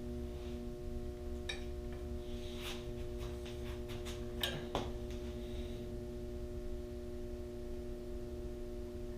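Steady electrical hum over a low rumble, with a few faint clicks and taps.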